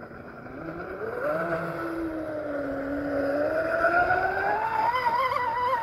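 Traxxas M41 Widebody RC catamaran's brushless electric motor whining as the boat accelerates, its pitch climbing steadily and growing louder, then wavering near the end at full speed.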